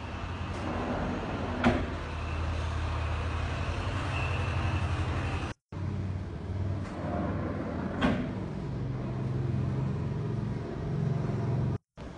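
Sliding doors on hanging rollers rolling along an overhead track with a steady low rumble, and a sharp knock about two seconds in and again about eight seconds in as a door reaches the end of its travel. The sound cuts out briefly twice.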